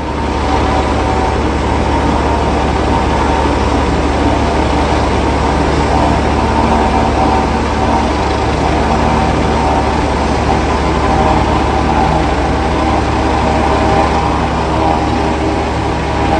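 Bell 429 helicopter running on the ground with its rotor turning at speed, about to lift off. A loud, steady low buzz from the rotor, with steady whining tones above it and a rushing noise of rotor wash.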